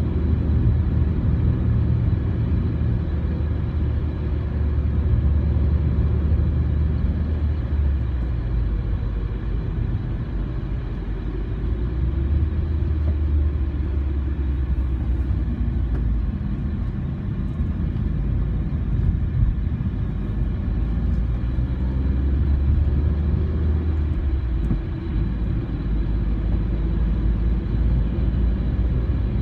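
Steady low rumble of a car's engine and tyres on the road, heard from inside the cabin, easing a little a few times.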